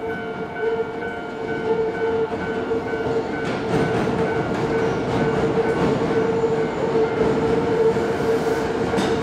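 Toei Asakusa Line 5300-series electric train pulling into the station, its wheels rumbling and clattering over the pointwork and growing louder about a third of the way in. Over it runs a steady electronic tone with a quick repeating beep.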